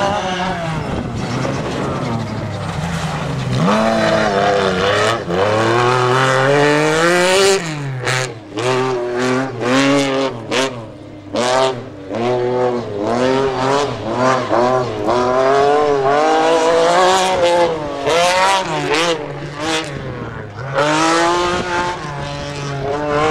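Rally car engine driven hard along a stage: its note climbs steeply, drops at each gear change or lift off the throttle, and climbs again. About a third of the way in comes a burst of quick rises and falls with sharp cracks, as the car brakes and turns through corners.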